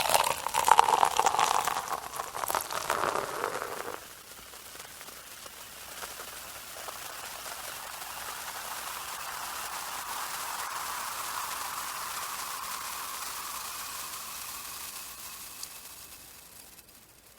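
Champagne gushing and splashing loudly for about four seconds, then a steady crackling fizz of bubbles that fades away near the end.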